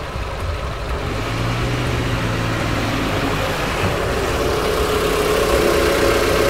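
A motor vehicle's engine running steadily and slowly getting louder, with a low hum in the first half and a higher-pitched drone taking over in the second half.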